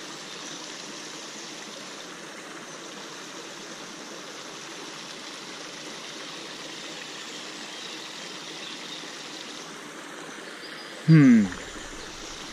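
Water from an inlet pipe pouring and splashing into a pond, steady throughout. About eleven seconds in comes a brief, loud vocal exclamation that falls in pitch.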